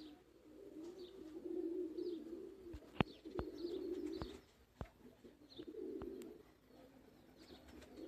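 Domestic pigeons cooing: several drawn-out low coos in a row, with faint high chirps and a few sharp clicks in between.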